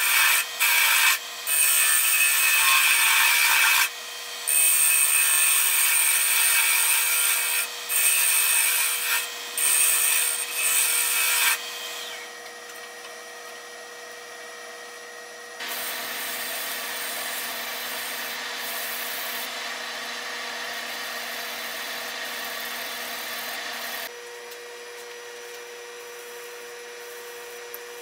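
Turning tool cutting a spinning cherry wood piece on a lathe: a loud hissing scrape in repeated passes with short breaks for the first dozen seconds, then a softer, steady scraping for several seconds before it stops. A steady hum runs underneath.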